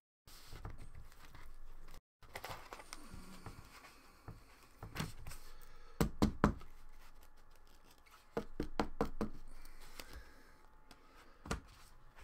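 Hard clear plastic card holders clicking and knocking as trading cards are handled, closed into the cases and set on a stack, with soft rustling of cards between: a sharp double click about six seconds in and a quick run of clicks a couple of seconds later.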